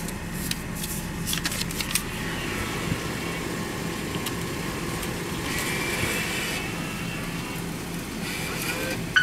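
Car engine idling steadily, with a few clicks in the first two seconds. About six seconds in comes a brief higher whir as a dollar bill is fed into the car-wash pay station's bill acceptor.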